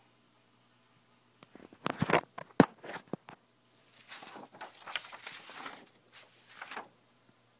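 Handling noise as a sheet of paper is lifted away and swapped for the next: a few sharp knocks and taps about two seconds in, then a few seconds of rustling.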